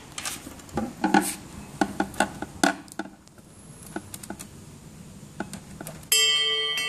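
Sharp clicks and knocks from handling a plastic unit and a metal screwdriver, densest in the first three seconds and sparser after. About six seconds in, music with held tones starts abruptly.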